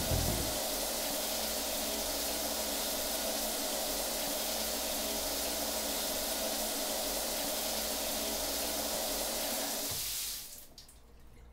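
Shower running, a steady hiss of water spraying down in a tiled shower stall, until it stops abruptly about ten seconds in, leaving a few faint drips.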